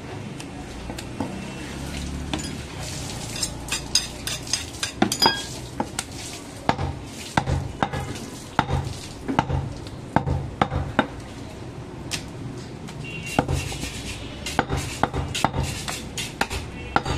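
A butcher's knife chops goat meat on a wooden log chopping block: a steady run of sharp knocks, about one and a half a second, from about six seconds in. Before that, a few seconds of quick metallic scraping clicks come from the knife being honed on a sharpening steel.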